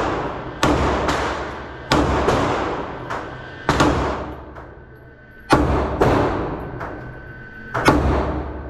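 Five slow, deliberate shots from a 9mm semi-automatic pistol, about one every one and a half to two seconds, each crack followed by a long echo off the walls of an indoor range.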